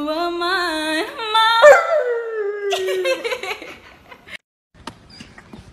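Husky howling: one long drawn-out howl that wavers, rises sharply about a second and a half in, then slides slowly down in pitch and fades out about three seconds in.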